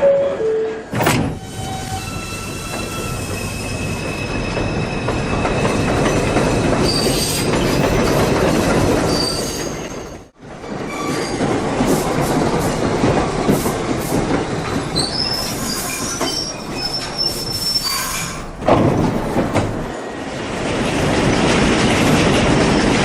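Subway train running along the track, its steel wheels squealing in thin high tones over a steady rumble and rail clatter. The sound drops out sharply about ten seconds in, then picks up again.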